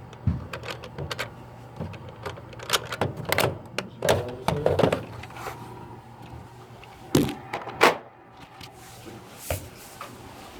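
Nerf Rival blaster being worked and fired: a string of sharp clicks and thuds, the two loudest about seven and eight seconds in, over a steady low hum.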